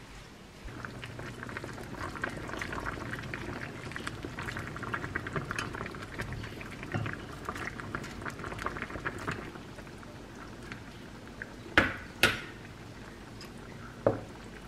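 A pot of spicy beef and green-onion soup (daepa-gaejang) bubbling at a boil, with a metal ladle scooping it into a ceramic bowl. Near the end come two sharp clinks about half a second apart, then another about two seconds later.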